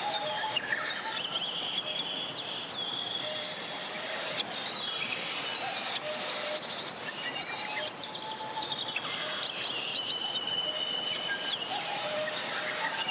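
Mountain valley stream rushing steadily over rocks, with birds chirping now and then over the sound of the water.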